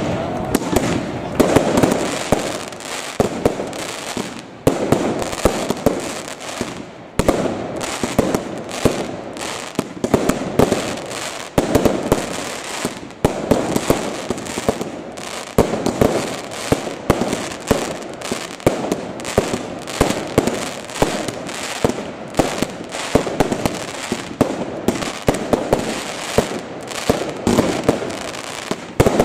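Aerial fireworks bursting in quick, continuous succession: sharp bangs several times a second over a steady crackle, with no pause.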